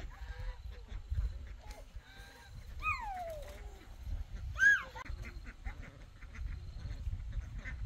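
Farm fowl calling: a few separate calls, one falling in pitch about three seconds in and the loudest just past the middle, over a low rumble.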